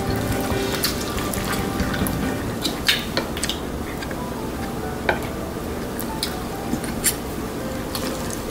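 Wet, sauce-coated instant noodles lifted and dropped back into a bowl: soft squelching and slapping, with scattered sharp clicks of a utensil against the bowl.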